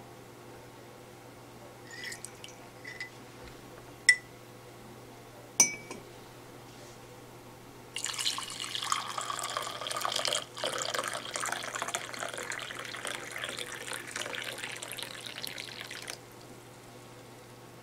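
A metal spoon clinks against a porcelain mug, with a few light taps and then two sharp ringing clinks. Then liquid is poured in a steady stream into the mug for about eight seconds, splashing as it fills.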